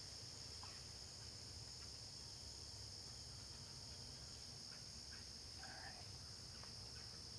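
Crickets and other insects chirping in a steady, faint, high-pitched chorus over a low outdoor rumble.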